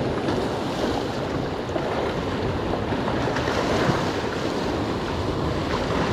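Ocean surf washing against a rock jetty, with wind buffeting the microphone: a steady rushing noise.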